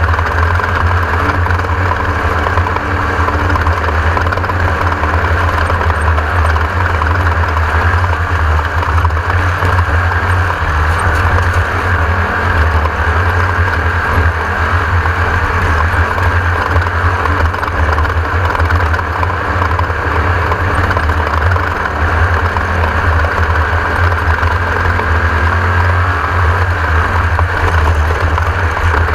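Class 1600 off-road race buggy's air-cooled Volkswagen engine running hard at a steady pace: a constant loud drone with no lulls or shifts.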